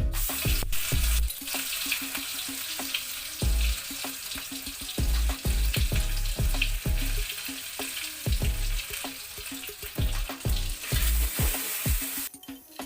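Food sizzling in hot oil in a pan, a steady frying hiss with light scraping and clinks of stirring, cutting off abruptly about half a second before the end. Background music with a steady beat plays underneath.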